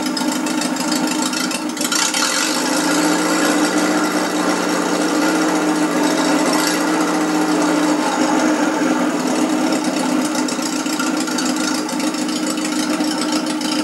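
Moskvich UZAM-412 inline-four engine running steadily in a homemade pickup, heard off old camcorder tape played through a TV speaker. A lower note joins about two and a half seconds in and drops away around eight seconds.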